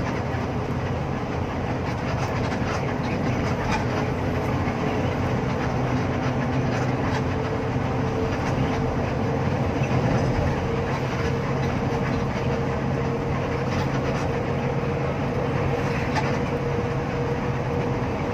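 Inside an intercity bus cruising at highway speed: a steady engine drone and tyre-and-road noise, with a faint steady whine and scattered light rattles from the cabin.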